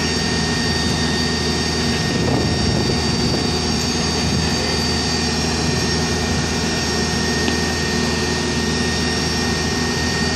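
Case backhoe loader's diesel engine running steadily under load, with a steady high whine over it.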